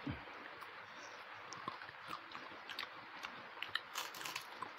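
Close-miked mouth sounds of chewing while eating rice and fish by hand, with small wet clicks from fingers working rice on a plate. There is a short thump right at the start and a cluster of clicks about four seconds in.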